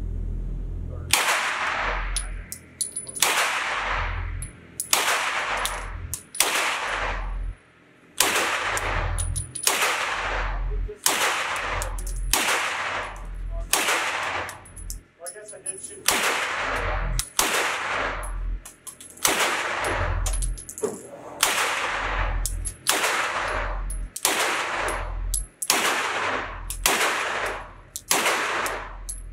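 Beretta CX4 Storm 9mm carbine firing a long string of semi-automatic shots at a steady pace of a little under one a second, each shot ringing on in the reverberation of an indoor range, with short pauses about 7 and 15 seconds in.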